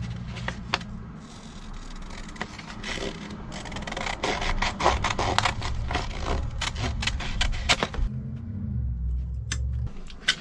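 Scissors cutting through a paper mounting template, a quick run of crisp snips with paper rustling, stopping about eight seconds in.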